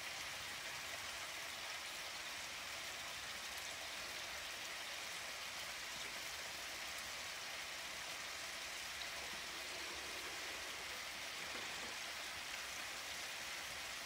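Scallops searing in a hot pan, giving a steady sizzle as they start to brown and form a crust.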